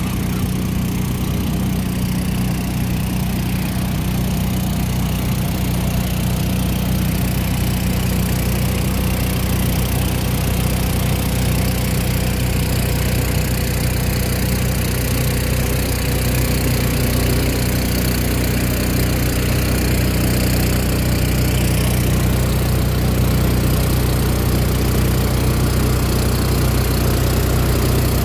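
Fire trucks' diesel engines running steadily and working their water pumps, with the hiss of the water cannon jets spraying.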